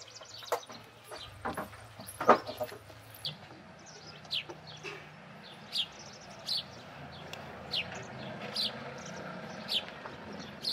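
A few sharp knocks in the first couple of seconds, the loudest about two seconds in. After that a small bird chirps: short, high, falling chirps about once a second over a faint low hum.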